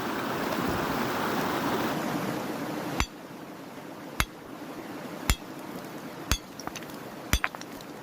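Steady rushing of river water, which drops away about three seconds in. Then come sharp hard knocks, as of rock being struck: five loud ones about a second apart, with a few fainter clicks between.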